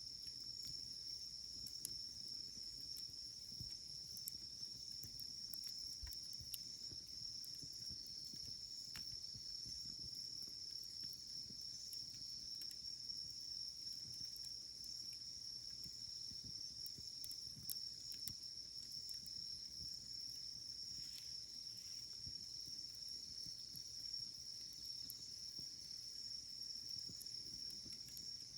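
Steady high-pitched chorus of crickets, with a wood fire giving a few sparse crackles and pops over a low rumble.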